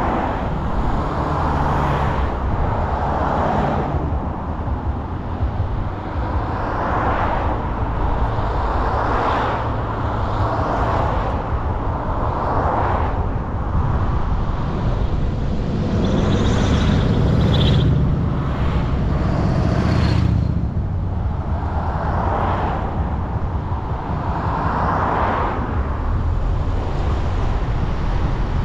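A car driving through town: steady road and engine noise, with swells every couple of seconds and a louder low rumble about sixteen to twenty seconds in.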